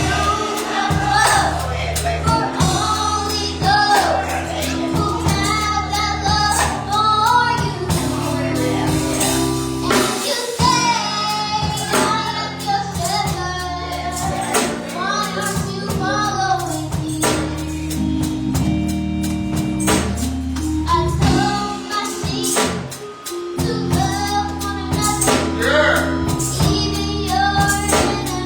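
Gospel music with singing over sustained chords, a bass line and a steady beat with tambourine.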